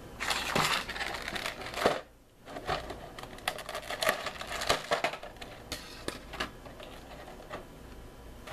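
Hands handling small plastic action figures and their packaging: a burst of rustling, then a run of sharp plastic clicks and taps that thin out toward the end.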